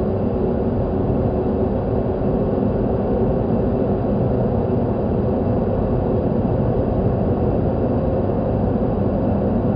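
Steady, low rumbling drone with faint held tones inside it, a dark horror ambience sound effect; it does not change or break.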